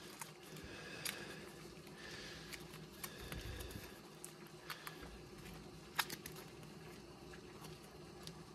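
A small sealed ration portion packet being kneaded by hand: faint crinkling and scattered soft clicks, with one sharper click about six seconds in.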